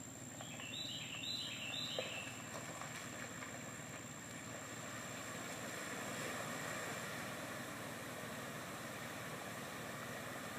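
Vehicle engine running through a deep creek crossing, with a steady rush of water and engine noise. A few short high chirps come about a second in.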